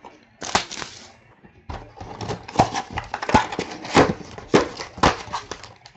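Box of trading cards and its packs being handled and opened: a single click, then from about two seconds in a dense run of sharp, irregular crinkles, clicks and taps.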